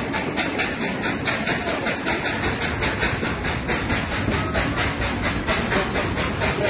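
Baldwin steam locomotive and its train running, a fast, even beat of about five strokes a second over a steady rushing noise.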